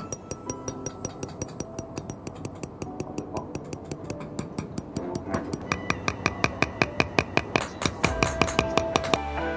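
Small hammer tapping on gold sheet metal in a rapid, even rhythm of about four strikes a second, each with a short metallic ring. The strikes grow louder in the second half and stop suddenly near the end.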